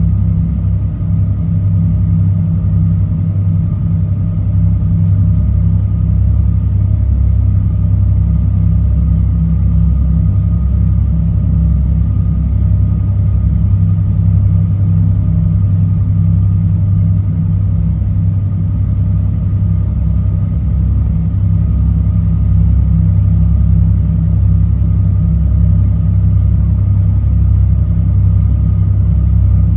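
Passenger ferry's engines running at steady cruising speed, heard from inside the cabin: a loud, even low drone with a constant hum above it.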